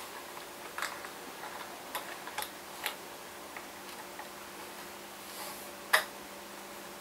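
Small, irregular plastic clicks and taps as wheelsets are pushed into an OO gauge model railway vehicle held in the hands, the sharpest click about six seconds in. A faint steady hum runs underneath.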